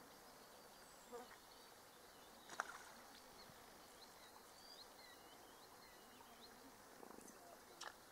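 Near silence: faint outdoor quiet with a few soft clicks, the clearest about two and a half seconds in and another near the end.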